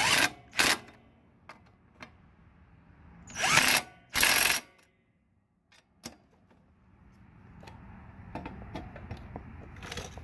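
Cordless impact driver with a 5/8-inch socket running in short bursts as it drives the mower blade's bolts home: two brief bursts at the start and two louder ones about three and a half and four seconds in. After that, faint clicking and rattling of the tool and socket on the bolts.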